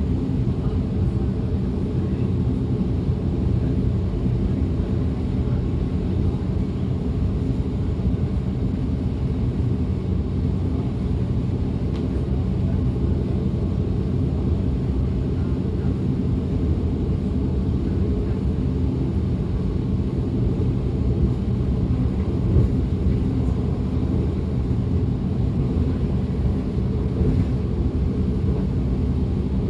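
DB class 425 electric multiple unit running steadily along the line, heard on board: a constant low rumble of wheels on rail with a faint steady hum.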